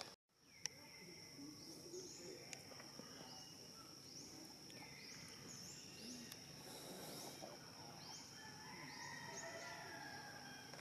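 Faint forest ambience: a steady high insect drone with short rising bird calls repeated every second or so.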